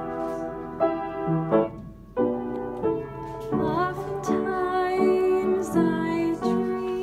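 Upright piano played in full chords, each held briefly before the next, with a short break about two seconds in.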